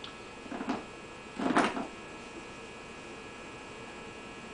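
Steady electrical mains hum with many fine steady tones. Two short noises stand out, one about half a second in and a louder one about a second and a half in.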